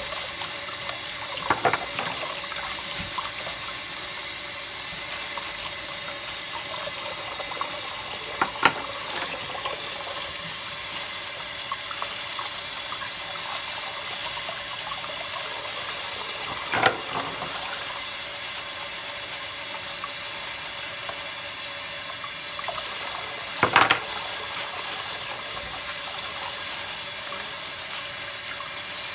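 Tap water running steadily into a sink, with four sharp knocks of oyster shells spread through it as the oysters are scrubbed clean with a nylon net.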